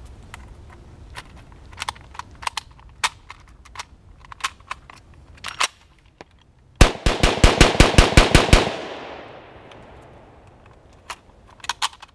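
Metal clicks of rounds being pushed from a steel stripper clip into an SKS rifle's magazine, then about ten rapid semi-automatic shots from the 7.62×39 SKS in under two seconds, with an echoing tail. Near the end more metal clicks as the rifle is reloaded.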